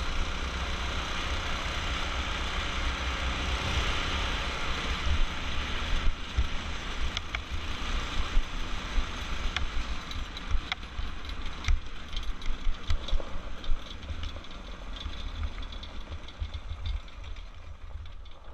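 Off-road go-kart's small engine, driving through a torque converter, running at speed with a dense, steady noise. About six seconds in it gets quieter and uneven, with the frame rattling and knocking over rough ground, and it fades further near the end.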